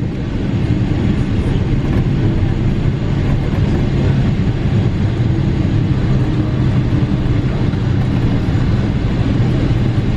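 Cabin noise inside a Boeing 777-300ER: its GE90 jet engines and the airflow make a steady low rumble with a constant hum in it.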